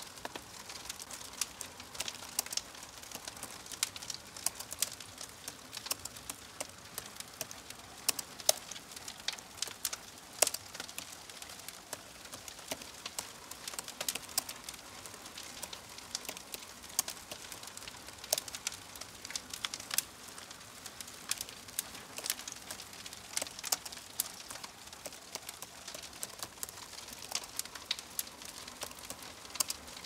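Keyboard typing in uneven runs of soft clicks, mixed with the irregular pops and steady hiss of a crackling fire.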